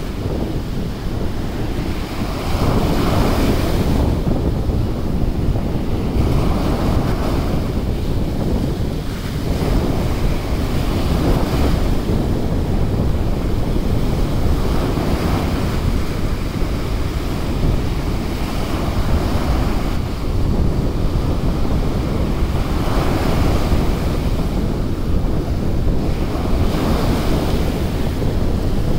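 Small surf waves breaking and washing up a sandy beach, the wash swelling every few seconds, with heavy wind rumble on the microphone.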